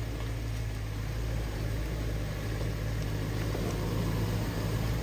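Off-road 4x4 vehicle's engine running steadily with a low, even drone.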